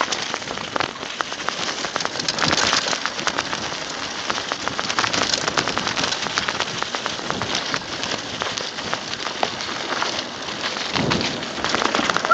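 Mountain bike tyres rolling fast downhill over dry leaf litter and dirt, a continuous crunching hiss packed with small clicks and knocks as the bike rattles over the rough trail.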